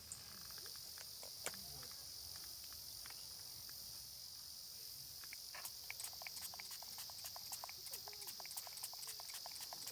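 Steady chorus of summer insects, high and continuous. From about halfway through, a quick run of short, sharp clicks joins it.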